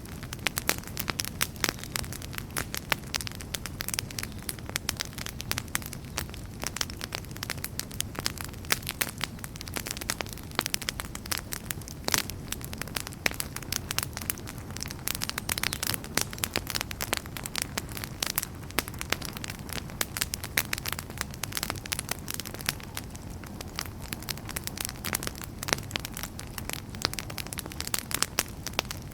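Wood campfire burning and crackling: many sharp, irregular pops and snaps over a low, steady rush of the flames.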